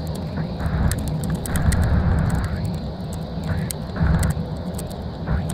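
Inside a coach at motorway speed: a steady low rumble of engine and tyres under a rushing road and wind noise that swells and fades, with a scatter of small clicks and rattles.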